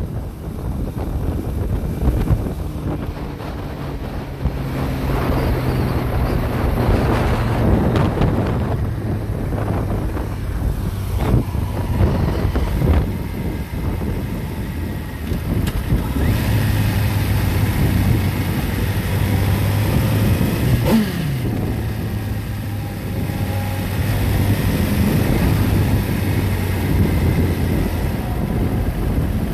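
Motorcycle engine running on the move in traffic, its pitch shifting as the throttle opens and closes, with wind rushing over the microphone. About two-thirds of the way through there is a quick falling sweep in pitch.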